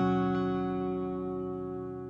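Closing chord of a pop song ringing out and fading away, with piano or guitar tones held and no new notes.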